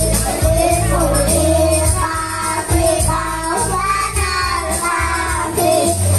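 A child singing a melodic song over instrumental accompaniment with sustained low bass notes.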